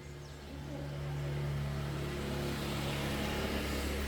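Motorcycle engine running, growing louder through the first second and then holding a steady hum.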